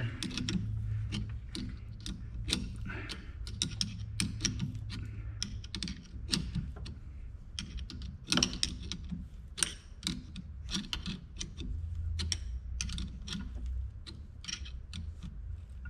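Irregular small clicks and scrapes of hand work on a nylon knob with metalworking tools, over a low steady hum.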